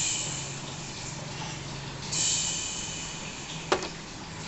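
Two short bursts of soft hissing, the second about two seconds in, then a single sharp click near the end, over a faint low hum.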